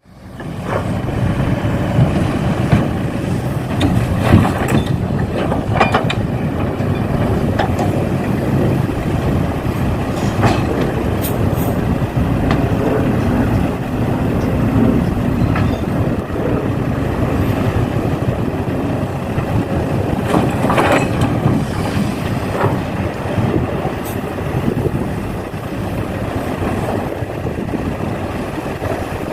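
RC model heavy equipment working: a steady run of motor and gear noise with scattered knocks and clatter.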